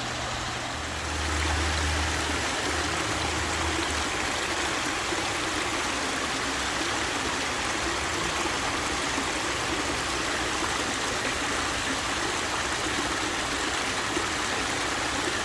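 Water running steadily over the rocks of a backyard pondless waterfall into its pools. A low rumble joins in about a second in and lasts about three seconds.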